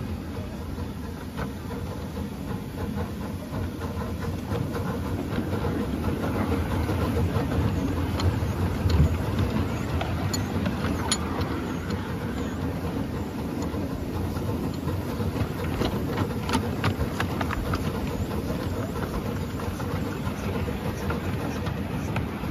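Small Exmoor-built steam locomotive running along a light railway track: a steady low rumble from the engine and wheels, with scattered sharp clicks of wheels over rail joints, thickest in the middle of the run.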